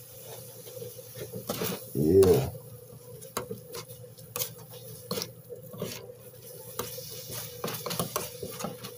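Plastic spatulas stirring and scraping shredded beef on a flat-top grill: scattered light clicks and taps over a steady low hum.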